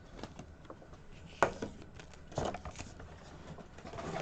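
Faint handling sounds of HeroClix booster packaging and plastic figures: light rustling with a few sharp clicks, the loudest about one and a half seconds in and two more about a second later.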